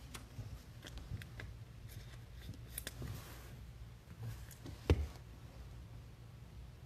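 Light clicks and faint rustling of trading cards being handled, with one sharper tap about five seconds in as a card meets the stack on the table. A low steady hum runs underneath.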